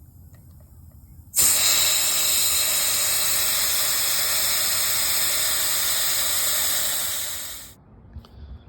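Air hissing out of a tire's valve stem, its valve core held open with the back of a tire pressure gauge to let the tire down flat before plugging it. The hiss starts suddenly about a second and a half in, holds steady for about six seconds, then fades and stops.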